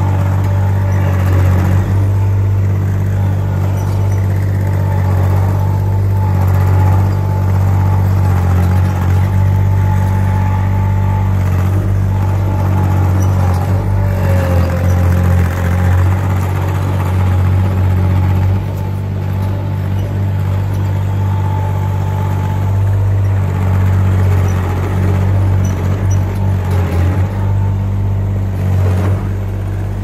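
Cormidi C1500 mini skid steer's engine running steadily under throttle with a faint whine above it, dipping briefly a few times as the tracked loader is maneuvered and its grapple worked.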